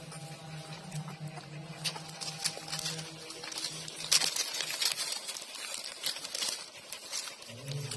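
Several puppies suckling at a standing mother dog's teats: quick wet smacking clicks and scuffling, busiest from about two seconds in. Under them is a steady low hum that drops out about halfway through and returns near the end.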